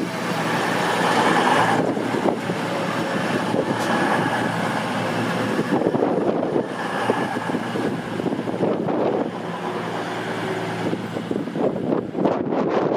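CrossCountry Voyager diesel multiple unit passing close alongside the platform, its underfloor diesel engines running and its wheels rolling on the rails in a steady, loud rumble.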